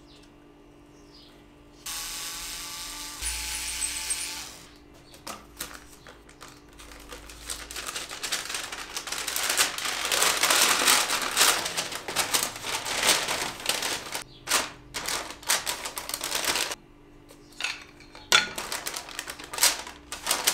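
Brown paper bag rustling and crinkling as it is opened and handled, with many small clicks and clatter of loose reed-organ reeds going into it, loudest in the middle and tailing off into scattered clicks. About two seconds in there is a brief steady pitched sound lasting about two seconds.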